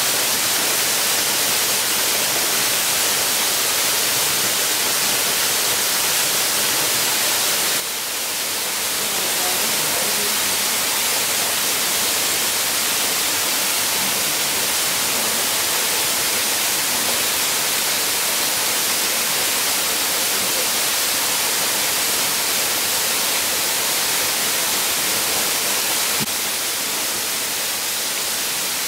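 Steady, bright hiss that dips briefly about eight seconds in and drops slightly near the end.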